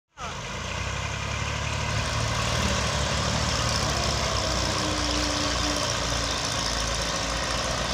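Diesel tractor engine running steadily under heavy load as it pulls a trolley heaped with earth, straining hard enough that its front wheels lift; a loader's engine runs alongside.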